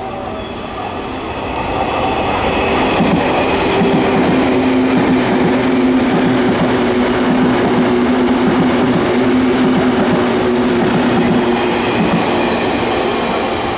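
JR 117 series electric multiple unit passing at speed without stopping: a loud rumble of wheels on rail that builds about two seconds in, with a steady hum and clicking from the wheels over the rail joints. The noise eases a little near the end.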